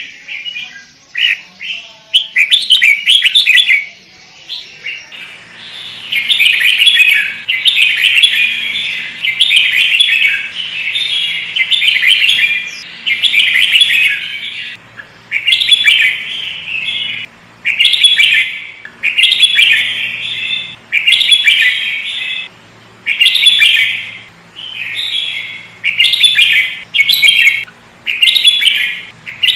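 Sooty-headed bulbul (kutilang) singing loudly. A few short scattered chirps come first, then from about five seconds in a steady run of chattering song phrases, each about a second long, separated by short pauses.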